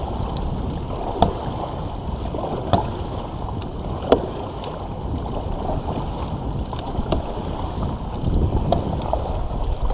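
Raft paddles stroking through calm river water, a steady splashing wash with a few sharp knocks. Wind rumbles on the microphone, stronger near the end.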